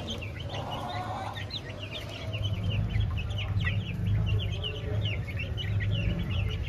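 Young chicks peeping continuously, many short, high, falling chirps overlapping one another. A low rumble joins underneath from about two seconds in.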